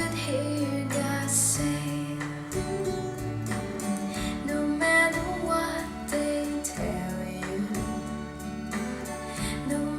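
A recorded pop song from a CD, played back through a Ruark Audio R5 music system's speakers.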